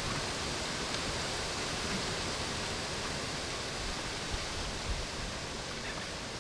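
Steady, even hiss of outdoor background noise, with two faint low thumps at about four and five seconds in.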